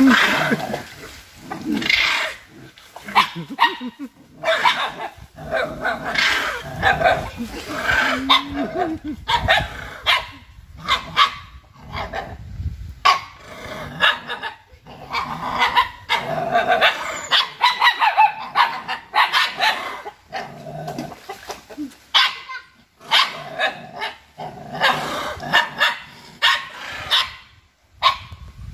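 A dog barking over and over in short, irregular barks.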